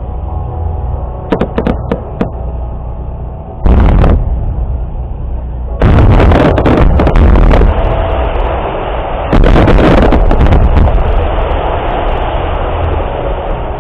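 Firework shells of a starmine barrage bursting: three big booms, about four, six and nine and a half seconds in, each followed by dense crackling and rumbling from the rapid-fire shells.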